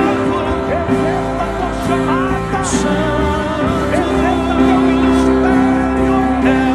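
Worship music: held keyboard notes under a wavering sung vocal line, with soft cymbal swells.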